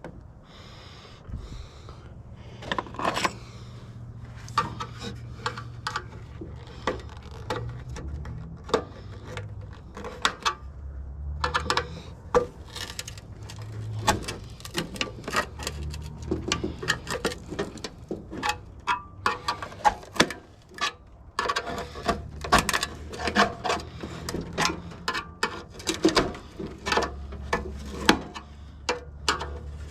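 Hand tools and metal parts of a water heater being worked apart: irregular clicks, knocks and scrapes, coming in quick runs at times, over a low steady hum.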